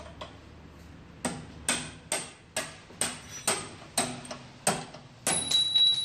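Hammer blows on metal on a car's front suspension: about ten sharp, ringing strikes, roughly two a second, starting about a second in. The last strike is followed by a high metallic ring that hangs on briefly.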